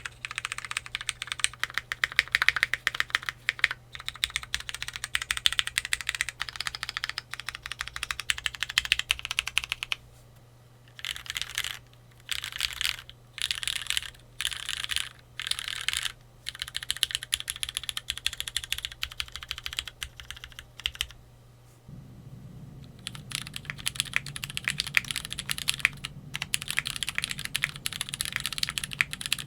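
Typing on a Keychron Q3 tenkeyless mechanical keyboard with lubed Cherry MX Black Hyperglide linear switches mounted in an FR4 plate. The typing is steady at first, breaks into a run of short quick bursts in the middle, and then goes on steadily. About 22 seconds in, the recording changes to the same keyboard with a polycarbonate plate, and the typing resumes after a short pause.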